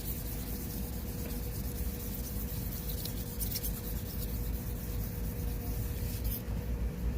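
Fine-grit sandpaper wet-sanding a plastic headlight lens in quick scratchy back-and-forth strokes, to remove yellowed oxidation; the sanding stops about six seconds in.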